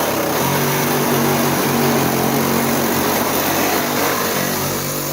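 Power saw running very loud as it cuts through a refrigerator door: a steady motor hum under harsh cutting noise.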